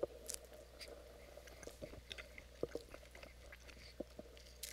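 A person biting into a crisp snack, then chewing it quietly with scattered small crunches.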